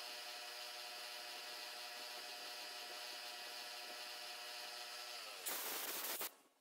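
Machine spindle and motor running steadily, a whine of several steady tones, while a counterbore finishes holes in the shaper base. About five seconds in the pitch falls as the spindle winds down. A short, louder brushing noise follows as chips are swept off the part, then it stops.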